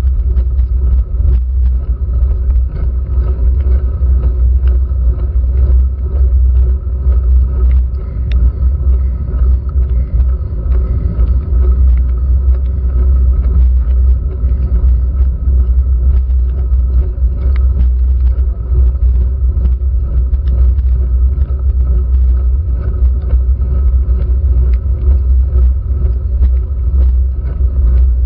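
Steady low rumble from a handlebar-mounted GoPro Hero3 in its waterproof housing on a bicycle slowly climbing a wet road. Frequent small ticks are scattered over it, typical of raindrops striking the housing.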